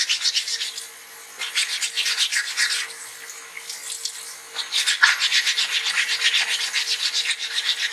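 Wet 220-grit waterproof sandpaper rubbed by hand over a stone dental model in quick back-and-forth scratching strokes, with two brief pauses: about a second in and again around the middle.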